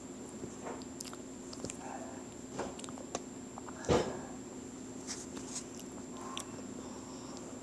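A steady low hum and a faint high whine with scattered small clicks and taps, and one louder knock about four seconds in.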